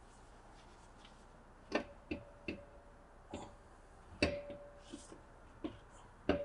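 Metal-on-metal clanks and knocks as the BMW R90/6 crankshaft is worked out of its aluminium engine case, about seven sharp knocks at uneven intervals. A few of them leave a brief metallic ring.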